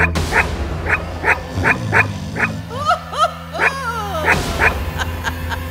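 A small dog yapping about three times a second, with a few whining yelps in the middle, over a low sustained music drone.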